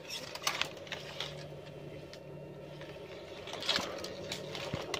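Dry reed stems rustling and crackling faintly as a fishing pole is pushed among them in shallow pond water. There is a slightly louder burst of rustling about three and a half seconds in and a sharp tick near the end, over a faint steady low hum.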